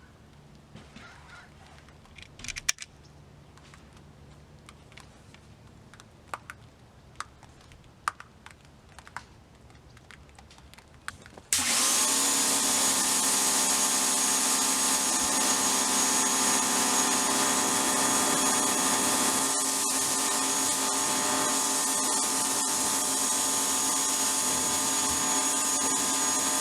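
Scattered faint clicks and knocks, then, about eleven seconds in, a RYOBI 1600 psi electric pressure washer starts suddenly and runs steadily with a high whine over several steady tones, spraying through a foam cannon.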